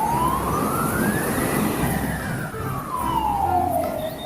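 Ambulance siren wailing: one slow rise and fall in pitch, starting to climb again near the end.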